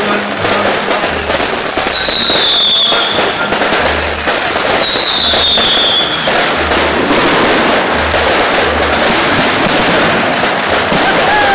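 Fireworks display bursting and crackling continuously, with two long whistles falling in pitch in the first half.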